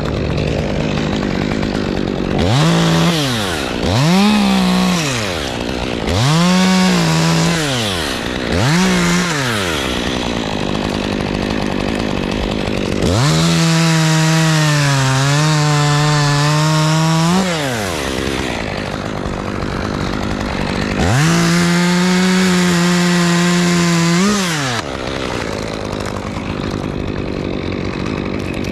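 Two-stroke chainsaw idling and being blipped to high revs four times in quick succession. It is then held at full throttle for about four seconds, its pitch dipping and wavering under load, and again for about three seconds before dropping back to idle.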